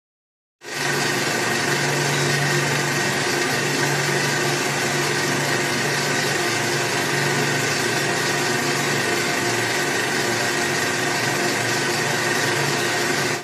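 Steady hissing noise with a low hum beneath it, switching on abruptly and holding an even level throughout, with no shot or other sharp sound.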